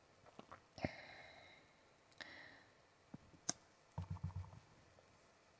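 Faint clicks and soft taps of a clear acrylic stamping block handled and pressed onto cardstock: a few sharp clicks, the clearest just under a second in and another past three seconds, then a quick run of soft taps about four seconds in.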